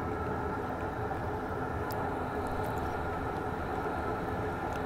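Steady, even background rumble with no distinct events.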